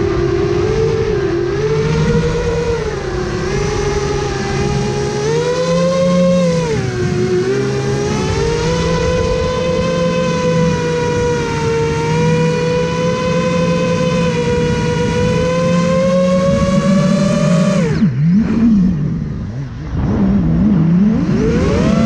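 FPV quadcopter's brushless motors whining, the pitch rising and falling with the throttle. About 18 seconds in the whine drops sharply as the throttle is cut, then dips and climbs again near the end.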